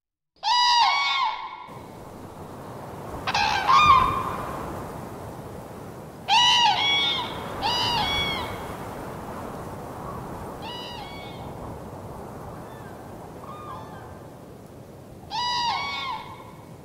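Seagulls calling: groups of short, arched cries every few seconds, a few of them fainter, over a steady background hiss.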